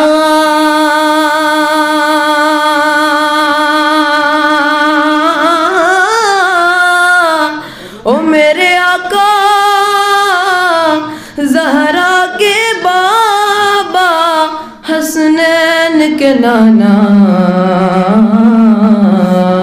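A boy's high voice singing a naat unaccompanied, holding one long wavering note for about seven seconds, then moving through shorter ornamented phrases with quick breaths between them.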